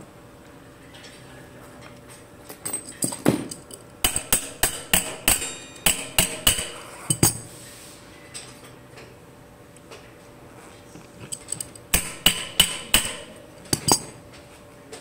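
Sharp metallic clinks and knocks, a few a second, from hand work on an electric bike's hub motor axle and disc brake rotor. They come in two runs, from about two and a half seconds in to about seven, and again about twelve to fourteen seconds in.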